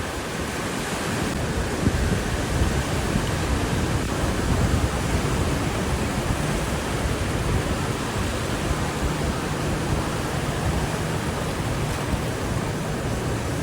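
Heavy sea surf: strong waves breaking and rushing in a steady, loud roar of water, with some wind buffeting the microphone.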